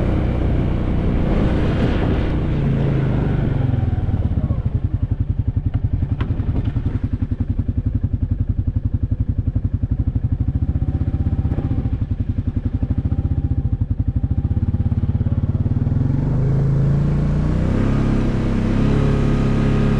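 Can-Am Outlander 700 Pro XU ATV engine running as it is ridden at easy throttle. The revs rise in the first few seconds, then drop to a lower, evenly pulsing note for most of the stretch, and pick up again near the end.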